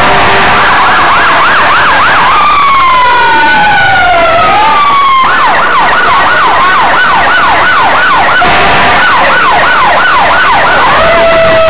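Emergency-vehicle sirens sounding loudly, several at once: a fast yelp warble overlaps slow rising-and-falling wails. The yelp drops out after about two seconds while a wail sweeps down and back up, then resumes from about five seconds in until near the end.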